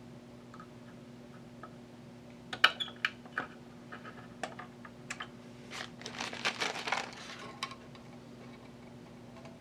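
Small sharp clicks and taps of hand tools and parts being handled while working on a circuit board. A few clicks come about two and a half to three and a half seconds in, and a denser clatter comes around six to seven and a half seconds. A faint steady hum sits underneath.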